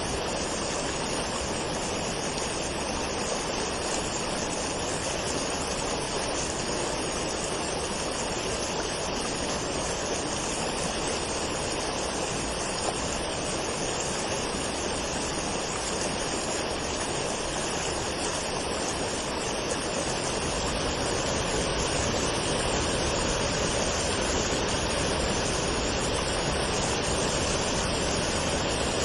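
Waterfall: a steady rush of falling water that grows slightly louder and deeper about two-thirds of the way through.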